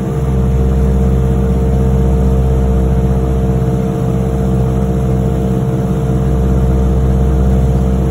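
Propeller airplane's engine and propeller heard inside the cabin, a loud steady drone as the plane climbs out after takeoff.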